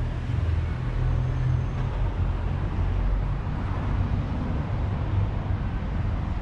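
Steady city street ambience: road traffic running past with a continuous low rumble.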